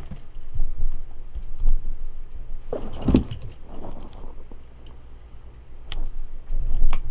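A tabby cat pouncing and scrambling on carpet: paws thudding and scuffling, with jingling from its collar. The loudest scramble comes about three seconds in, and two sharp clicks follow near the end.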